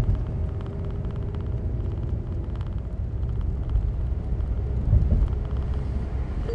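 Mazda MX-5 Miata roadster driving with the top down: a steady low rumble of wind and road noise over the faint hum of its four-cylinder engine. A brief thump comes about five seconds in.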